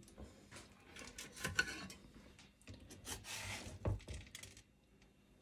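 Kitchen tongs lifting breaded chicken fillets off a tray and laying them in an air fryer's mesh basket: faint scraping and rustling of the crushed taco-chip coating, with a soft thump about four seconds in.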